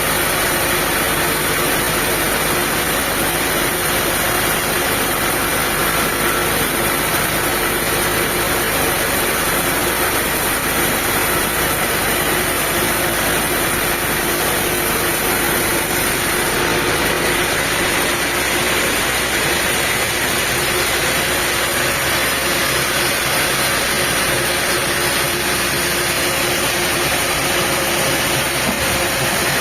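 Diesel engine running steadily, with no change in pitch or level.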